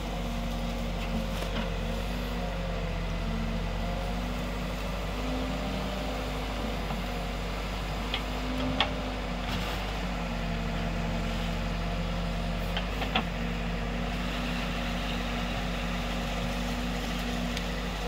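Escorts Digmax backhoe loader's diesel engine running steadily as the digging arm works, its pitch shifting slightly. There are a few sharp knocks, the loudest about 9 seconds in and two more around 13 seconds in.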